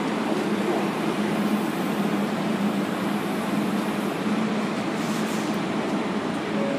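R188 subway car standing at the platform with its doors open: steady hum and rush of its onboard equipment, with a constant low drone.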